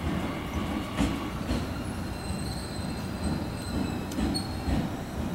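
885-series electric limited express train rolling slowly into a station platform: a low rumble, a few clacks of wheels over rail joints, and a thin high squeal for a couple of seconds midway as it slows.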